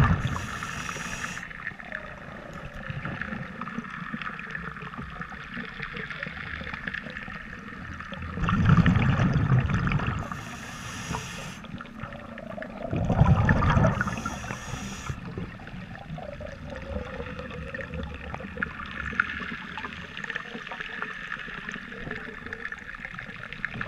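Scuba regulator breathing heard underwater: three breaths roughly four to five seconds apart, each a loud rumbling rush of exhaled bubbles followed by a short hiss, over a steady wash of underwater noise.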